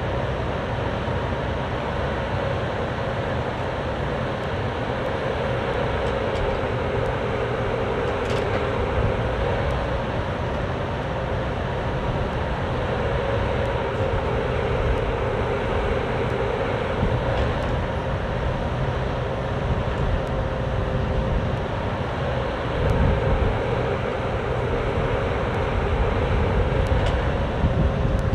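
Cat 304D mini excavator running steadily as it works its arm and bucket, a high whine held over the engine's low rumble. A few light clicks come through, and it grows a little louder about 23 seconds in.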